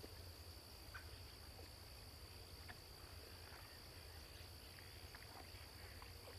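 Faint outdoor ambience: insects keep up one steady high-pitched drone over a low rumble, with a few faint ticks.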